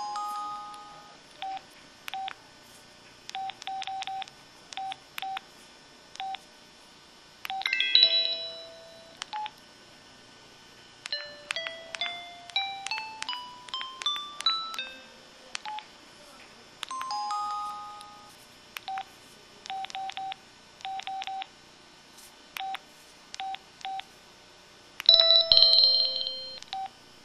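Sound effects from a KTF-X3100 mobile phone: short keypad beeps at uneven spacing, broken by a short chime near the start, another after about eight seconds and a third partway through. A run of about a dozen beeps climbs steadily in pitch in the middle, and a short bright jingle plays near the end.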